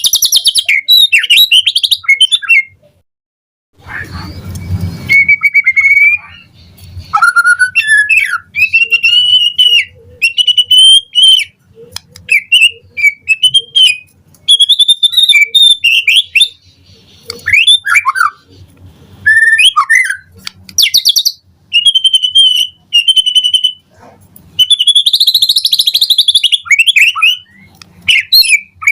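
White-rumped shama (murai batu) singing in full voice: loud, varied whistled phrases gliding up and down, delivered in quick bursts with short pauses. A short burst of noise comes after a silent gap about four seconds in.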